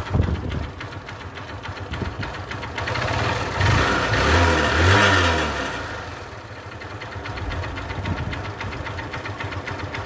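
Freshly rebuilt Honda Unicorn single-cylinder motorcycle engine idling. It is revved briefly a few seconds in, then settles back to a smooth, even idle.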